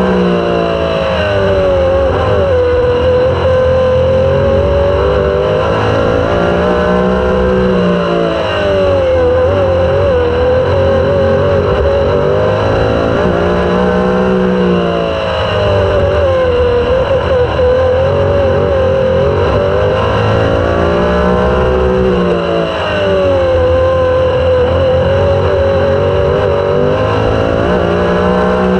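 Super sprint car's racing engine at full race pace, heard from on board. Its note drops and climbs again in regular cycles about every seven seconds, easing off for each turn and accelerating down each straight of the oval.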